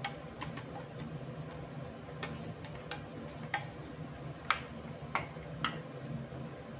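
A plastic spoon stirring spice masala in a metal pan, knocking against the pan in sharp, irregular clicks about once every half second to second, over a steady low hum.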